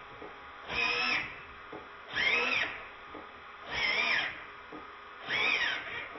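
Steering servo of a Losi 8IGHT-XTE truggy whining in four short bursts about a second and a half apart, each rising and falling in pitch as the steering is swung from side to side.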